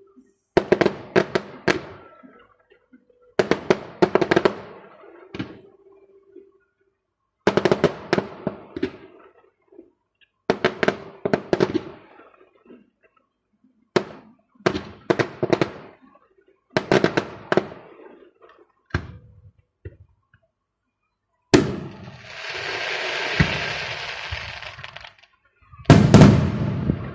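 Fireworks going off: clusters of sharp bangs and crackles every two to three seconds. About two-thirds of the way through, a bang is followed by a few seconds of continuous crackling fizz, and the loudest bangs come near the end.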